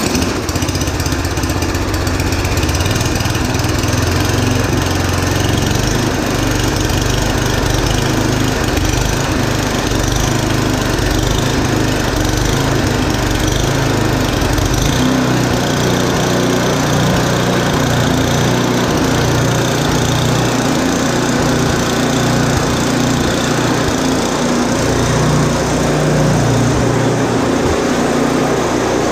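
Yard Machines 8 hp two-stage snowblower engine starting on full choke and running steadily, with no hunting, its carburetor freshly cleaned. Its sound changes about halfway through.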